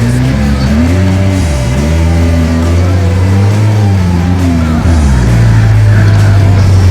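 Background music with a heavy, steady bass line.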